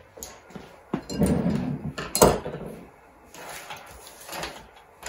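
Tools and small parts being handled and set down on a wooden kitchen worktop: a sharp knock about a second in, a longer scraping clatter, a louder knock just after two seconds, then lighter rustling and small knocks.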